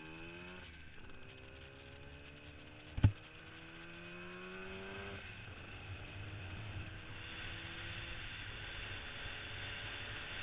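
Yamaha RD400 two-stroke twin accelerating through the gears: its pitch rises, drops at a shift, then climbs again. One sharp knock comes about three seconds in. In the second half, wind and road noise grow as the bike gains speed and mostly cover the engine.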